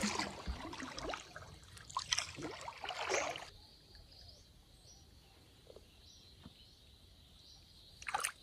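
Rustling and scraping handling noises for about three and a half seconds, then a faint, steady high hum, with one short scuff near the end.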